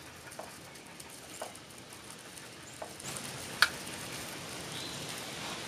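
Spoon scraping a thick sauce across crisp toast: faint, scattered scratching with a few small clicks and one sharp tap about three and a half seconds in.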